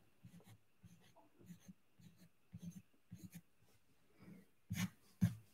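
Pen nib scratching on drawing paper in short, irregular strokes as a small flower and grass are inked in, faint, with a few louder strokes near the end.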